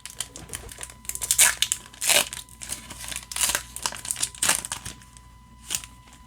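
Yu-Gi-Oh blister pack packaging being torn open and crinkled by hand, an irregular crackling with several louder rips over the first five seconds, then quieter with a single sharp tick near the end. A faint steady tone runs underneath.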